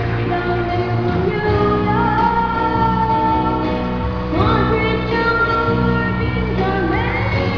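A young girl singing a pop song over instrumental accompaniment, her voice sliding between notes in a few places.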